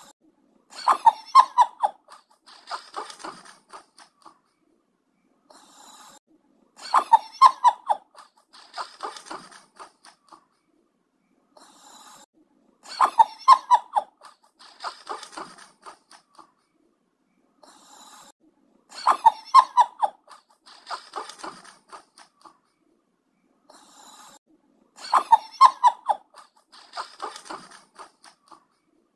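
Snoring repeating in a steady cycle about every six seconds. Each cycle is a short soft sound, then a loud stretch of rapid rattling pulses, then a softer one.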